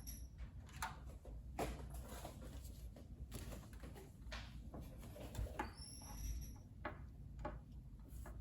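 Faint scattered clicks and knocks of PC parts and screws being handled and fitted into a computer case. Two short high chirps come through, one at the very start and one about six seconds in.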